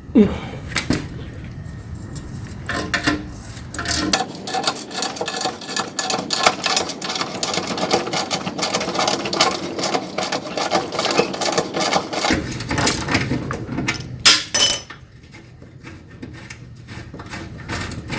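Hand socket ratchet clicking in fast runs while turning out 13 mm bolts on a truck bumper, with a few metal knocks.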